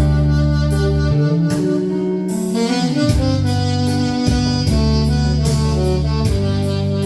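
A 1965 Buescher 400 saxophone playing a slow, sustained melody over a backing track with bass and light drums.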